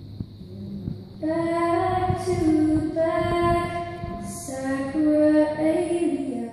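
A high solo voice singing slow, held notes without words, stepping from pitch to pitch, coming from a gallery video installation's soundtrack. It comes in about a second in, over faint low clicks and hum.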